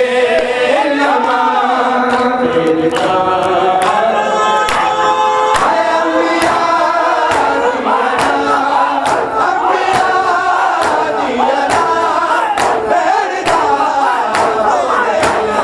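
Noha sung by male voices with a crowd of mourners chanting along, over the rhythmic slaps of hands beating on chests (matam), about two strikes a second.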